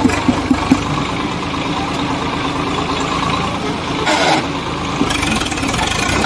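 Swaraj 855 tractor's diesel engine running steadily, hitched to a loaded trolley sunk in mud, with a short louder scraping noise about four seconds in.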